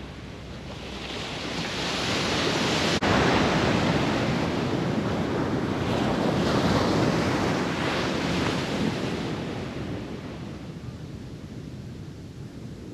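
Pacific Ocean surf on the beach: a wave's wash swells up about a second in, stays loud through the middle and slowly fades near the end, with wind on the microphone.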